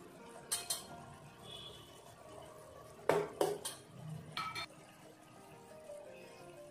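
Kitchen utensils clinking and knocking: a pair of clicks shortly after the start, three sharp knocks about three seconds in, and two ringing clinks just after. Underneath is the faint bubbling of curry simmering in a stone kalachetti pot.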